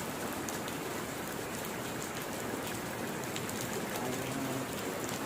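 Steady hiss and patter like rain falling, with faint voices in the background.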